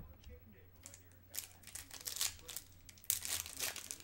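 Foil wrapper of a 2014 Bowman Chrome card pack crinkling and tearing as it is ripped open by hand. The crackling starts about a second in and grows louder toward the end.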